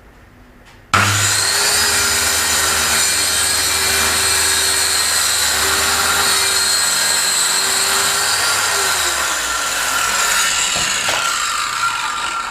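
Handheld circular saw starting up about a second in and running steadily as it crosscuts a plywood sheet along a sliding jig, its pitch sagging a little near the end.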